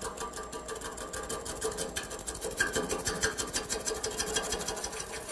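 Shallow gouge cutting an irregular, out-of-round wood blank turning slowly on a lathe: a fast, even chatter as the edge strikes the high spots on each turn, over the steady hum of the lathe. The piece vibrates because of its uneven shape and knots, not an aggressive cut.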